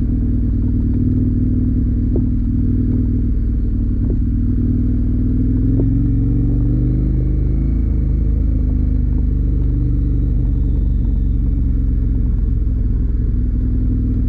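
KTM motorcycle engine running steadily under way, its note changing about six seconds in, with a few faint ticks.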